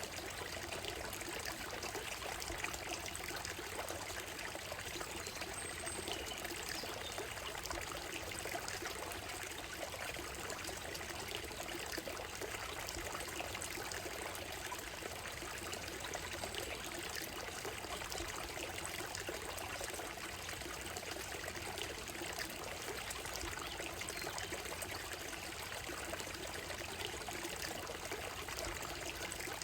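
Shallow forest stream running steadily over a gravel bed and stones, an even trickling water sound.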